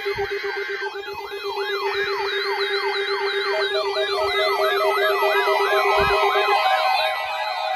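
Several electronic alarm tones sounding together: a falling siren whoop repeating about three times a second, over a steady low tone that stops near the end. A second beeping tone joins about halfway through.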